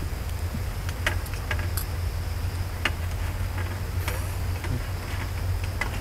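Scattered light clicks and taps, several over a few seconds, over a steady low rumble and a faint steady high tone.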